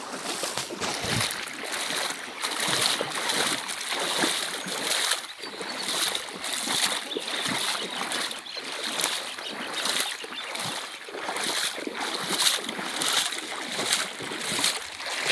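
Legs and rubber boots wading through shin-deep floodwater, a repeated sloshing swish with every stride.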